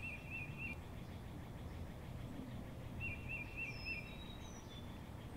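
Faint bird calls over low background noise: a quick run of four chirps at the start, repeated about three seconds later, with a few thin higher whistles just after the second run.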